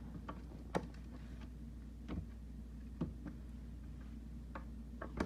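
Scattered light clicks and taps, irregularly spaced, from a screwdriver, screw and stool parts being handled as a small child works a screw into the stool.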